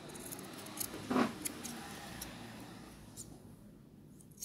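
Scissors snipping lace fabric, trimming excess seam allowance from a sewn seam: a few short, soft metallic clicks with a low rustle of fabric being handled, one slightly louder cut about a second in.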